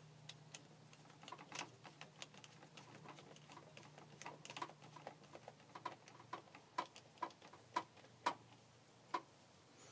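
Screwdriver tightening a hose clamp on a rubber intake hose: a run of small, irregular clicks, about two to three a second, growing louder in the second half.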